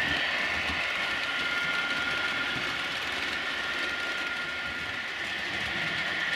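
Model railway trains running on a layout: a steady mechanical hum with a high, even whine from the locomotives and rolling stock on the track.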